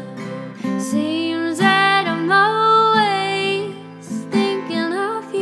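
Background music: a song with a singing voice, holding gliding notes over instrumental accompaniment.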